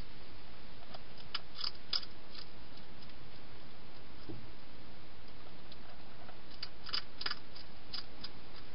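Hedgehog crunching food at a bowl, in two short runs of sharp crunches, one about a second in and another around seven seconds, over a steady hiss.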